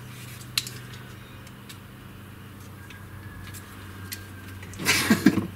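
Light plastic clicks from an Ozito 3.6 V cordless screwdriver being handled, one sharper click about half a second in, over a steady low hum. A short, louder vocal sound comes near the end.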